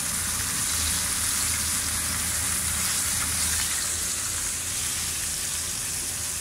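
Horse mackerel sizzling as they fry in a pan of hot sunflower oil: a steady hiss.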